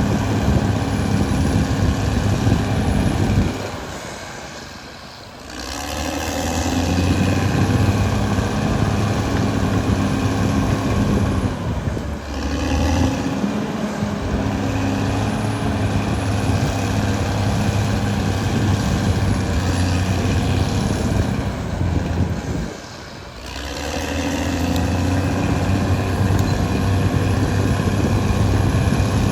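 Caterpillar D6R XL bulldozer's diesel engine running steadily at work. The sound dips briefly twice, about four and twenty-three seconds in, then comes back up.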